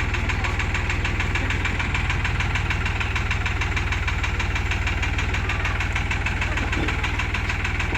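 New Holland tractor's diesel engine running steadily, with an even, rapid low throb.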